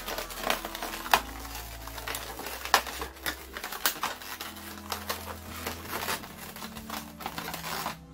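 Latex modelling balloons being twisted and rubbed by hand, giving irregular sharp clicks and crackles, over soft background music with low held notes.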